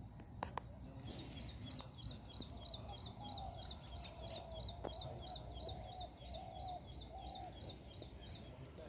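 A bird repeating a short, high chirp about three times a second, evenly spaced, over steady outdoor background noise with a thin, high steady whine. Two sharp clicks come just after the start.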